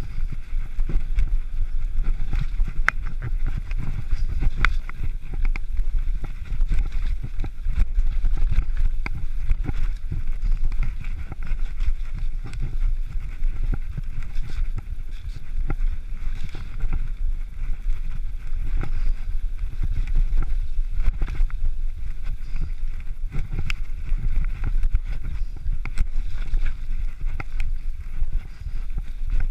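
Mountain bike running fast down a rough dirt and rock trail: a heavy rumble of tyres and wind on the microphone, with frequent clicks and rattles from the bike as it hits bumps.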